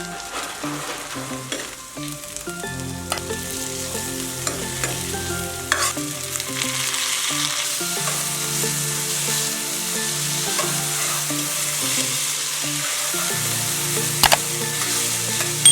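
Food frying and sizzling in a pan while being stirred, the sizzle growing stronger about six seconds in, with a sharp utensil knock near the end.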